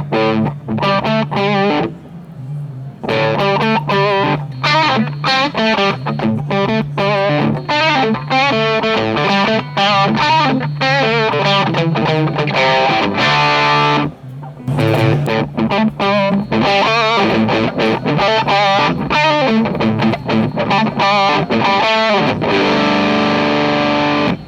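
Framus Idolmaker electric guitar played through an amp with the Earthquaker Devices Bows boost engaged, giving a driven, lightly distorted tone. It plays quick picked riffs and runs with two short breaks, ending on a held, ringing chord.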